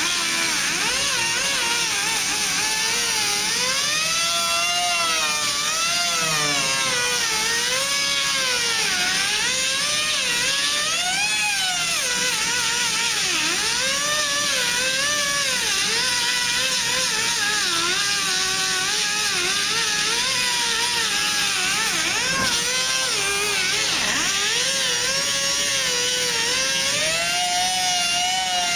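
Air-powered angle grinder with a 4.5-inch, 24-grit disc grinding rusted sheet steel on a truck's rocker panel. It makes a steady high whine whose pitch wavers up and down as the disc is pressed into the metal and eased off. The rust is being ground out to bare metal ready for welding.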